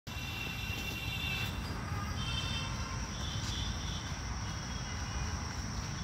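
Outdoor ambience: a steady high insect drone over a constant low rumble, with a few short chirping bursts in the first four seconds.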